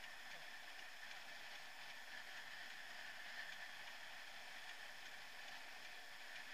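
Steady, even hiss of wind and rolling noise on the microphone of a camera carried on a bicycle, riding along a wooden boardwalk.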